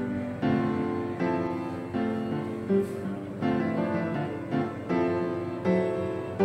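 Background piano music: notes and chords struck at an even, unhurried pace, each one fading away.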